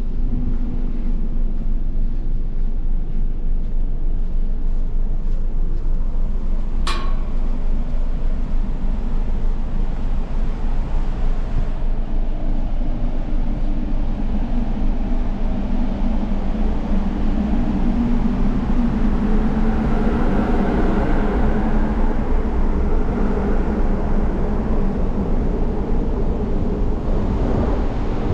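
Wind buffeting the microphone on a cruise ship's open deck, over the low rumble and hum of the ship's machinery. The hum grows stronger for several seconds midway. A single sharp click comes about seven seconds in.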